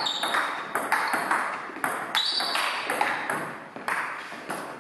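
Table tennis rally: the ball clicking off the bats and bouncing on the table in a quick, uneven run of sharp ticks, two to three a second, each ringing briefly in the hall.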